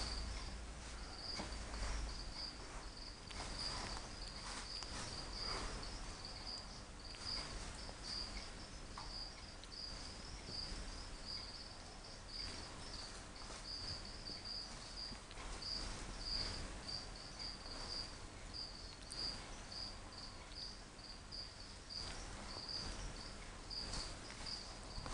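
A cricket chirping steadily in an even, rapid train of high-pitched pulses, over faint rustling and soft taps.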